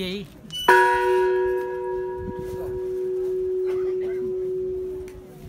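Large hanging metal bell rung once a little under a second in, then ringing on with a low hum and fainter higher overtones that slowly fade over about five seconds.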